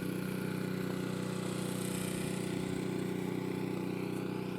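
Snowblower's small gasoline engine idling steadily, left running rather than shut off.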